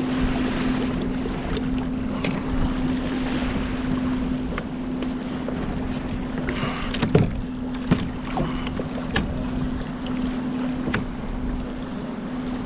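Kayak's electric trolling motor running with a steady hum, over water washing along the hull and wind on the microphone. A few sharp knocks come between about seven and eleven seconds in.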